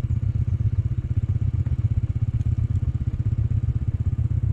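A small engine running steadily at idle, with a fast, even putter.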